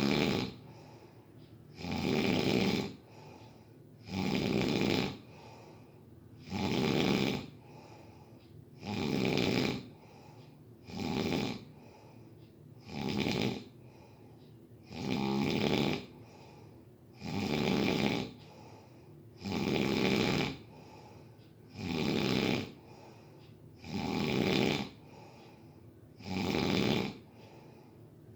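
Snoring in a steady rhythm, one loud snore roughly every two seconds, with quiet breathing in between.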